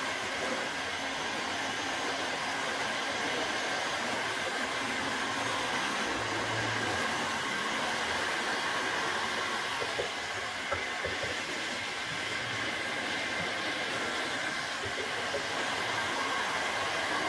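Handheld electric heat gun (Bosch) blowing steadily with a faint motor whine, heating the face of a cricket bat. A metal scraper scrapes lightly and intermittently over the wood, lifting the old mesh tape.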